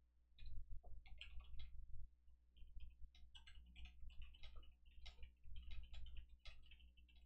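Typing on a computer keyboard: quick, irregular runs of faint key clicks with dull taps underneath.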